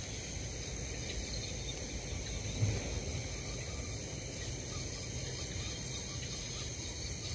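Night-time chorus of crickets and other insects, a steady high-pitched trilling, with one brief soft knock about two and a half seconds in.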